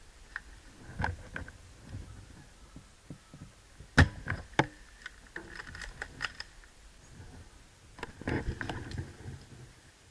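Scattered sharp clicks and snaps with faint rustling between them; the loudest snap comes about four seconds in, and a cluster follows near the end.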